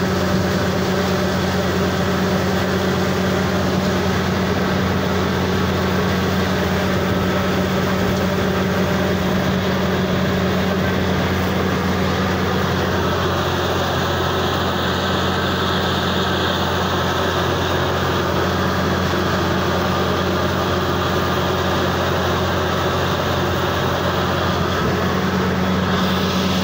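Truck-mounted borehole drilling rig running steadily while drilling: its engine gives a loud, unchanging low hum.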